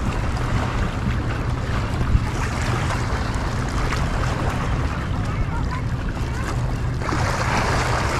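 Wind rumbling on the microphone over the wash of sea water against the rocks of the shore, with a louder rush near the end.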